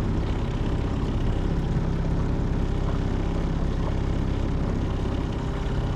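A boat's outboard motor running steadily at trolling speed, a constant engine hum.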